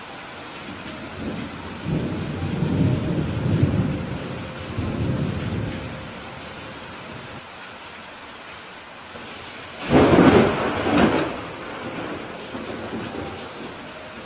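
Steady rain with thunder: a low rolling rumble starts a second or two in and lasts a few seconds, then a sharper, louder thunderclap about ten seconds in, trailing off in rumbles.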